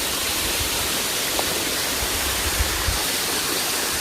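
Waterfall with a light flow of water falling steadily, a constant even hiss.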